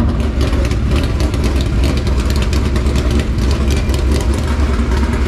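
Dirt late model race car's V8 engine running steadily at low speed, a loud low rumble with many sharp ticks over it.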